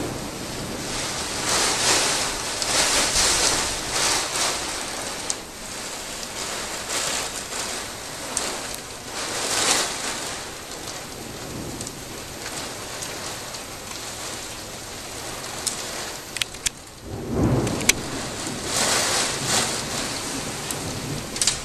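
Heavy wind-driven rain and strong gusts of a severe storm cell, rising and falling in surges, with a few sharp ticks against the window glass a little past three-quarters of the way through. The filmer takes the storm for a tornado, or its edge.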